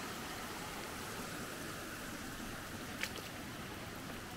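Steady rush of a rain-swollen creek flowing over a small wooden weir, with one brief click about three seconds in.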